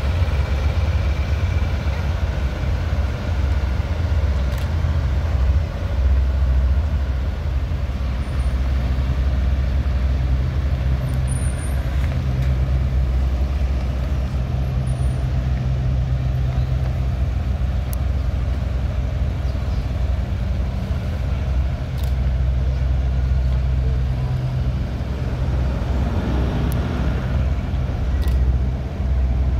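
Heavy-haulage truck diesel engine pulling an abnormal load slowly away: a steady, deep engine drone, with a few sharp clicks scattered through.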